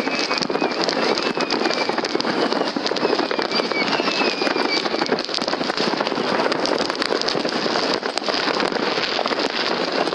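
Continuous crackling and popping from many fireworks going off across the city at once. A few faint falling whistles are heard in the first half.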